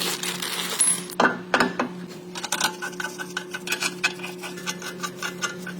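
Rapid metallic clicking and clinking of hand tools and steel parts being handled, over a steady low hum.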